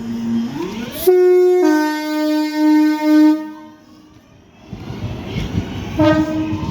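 British train horn giving a loud two-tone blast: a short higher note dropping to a lower note held for about two seconds. After a pause a train rumbles past and sounds another short horn note near the end.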